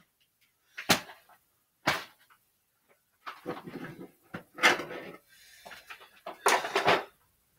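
Objects being handled and moved about: two sharp knocks about a second apart, then a run of irregular clattering and rustling.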